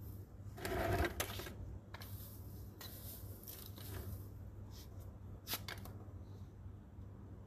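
Hand weeding in dry soil: a gloved hand pulling, scraping and tossing grass and dirt, a burst of rustling and scraping about a second in, followed by a few short sharp scratches.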